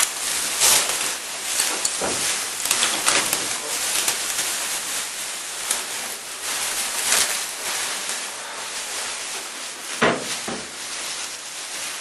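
Plastic bin-liner bags being handled: continuous crackly rustling with sharper crinkles throughout and a louder one about ten seconds in.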